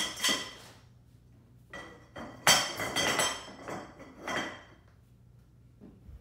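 Metal support poles knocking and clinking together as they are handled, in a few clusters of strikes with a brief ringing after each; the loudest knock comes about two and a half seconds in.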